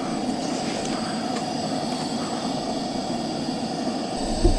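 Steady low mechanical hum, even throughout, with a faint high whine above it.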